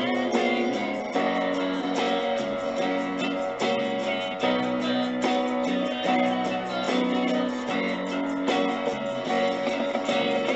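Background music played on guitar, with plucked and strummed notes.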